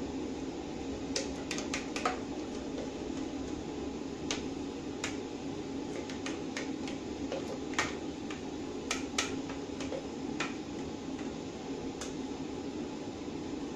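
A metal spoon scraping and knocking inside a stainless-steel mixer-grinder jar as thick batter is emptied into a steel bowl, giving irregular sharp clinks. A steady low hum runs underneath.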